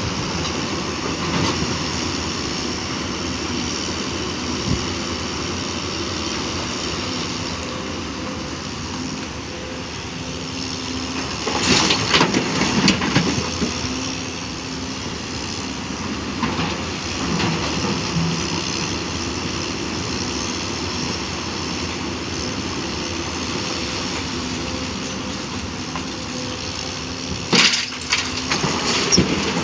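JCB NXT 225LC M tracked excavator's diesel engine running steadily under load as it digs and swings. Loads of blasted rock clatter into the dumper truck's body, once about twelve seconds in and again near the end.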